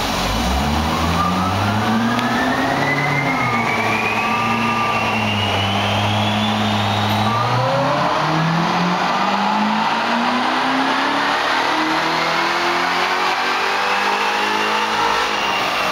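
Supercharged Corvette V8 on a chassis dyno, revving up under full load with a high whine rising in pitch alongside it. About halfway through the pitch breaks and then climbs again until near the end.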